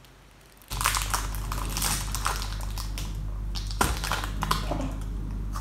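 Plastic wrapper of a Tim Tam pack crinkling and crackling as it is torn open by hand, starting about a second in, with a few sharper crackles among the rustling.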